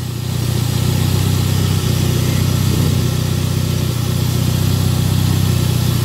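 Toyota 3S-GTE turbocharged four-cylinder engine idling steadily on a Link Storm aftermarket ECU, running for the first time in about two years. It gets a little louder in the first half second, then holds an even idle.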